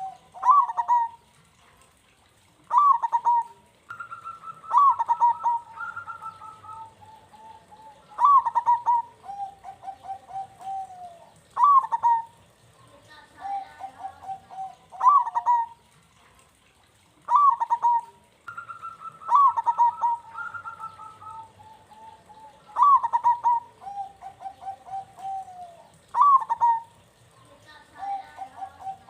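Zebra dove (perkutut) cooing, its rolling phrases repeated about every three seconds. Each phrase opens with a sharp note and runs into a trill, and at times two phrases overlap at different pitches.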